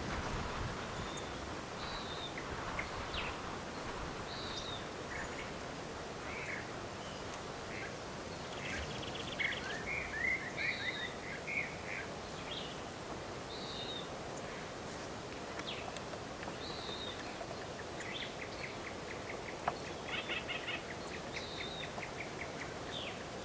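Small birds calling: short high chirps and whistled notes throughout, with rapid trills about ten seconds in and again near the end, over a steady background hiss.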